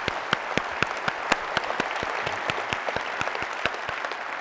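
Audience applauding, with one pair of hands near the microphone clapping clearly about four times a second over the crowd's clapping.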